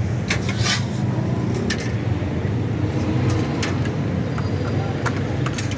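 Steady low rumble of road traffic, with scattered sharp clicks and clatter on top.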